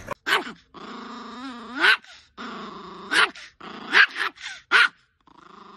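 A chihuahua growling in steady stretches, each breaking off into a sharp, high-pitched bark, several times over: an angry warning display.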